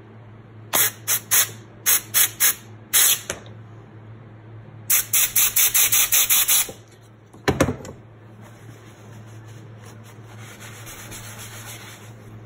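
Short hissing blasts of compressed air from a compressed-air brake bleeder, worked in quick pulses: several separate bursts, then a rapid string of them. One last burst comes with a low thud, and a fainter steady hiss follows near the end.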